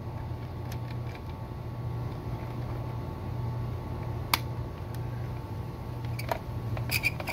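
Hard plastic parts of a fuel pump module clicking and knocking as they are handled and fitted together: one sharp click about four seconds in and a few more near the end, over a steady low hum.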